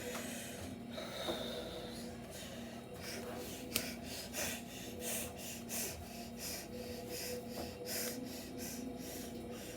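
A series of short, breathy, hissing puffs, coming about every half second to second, over a steady low hum.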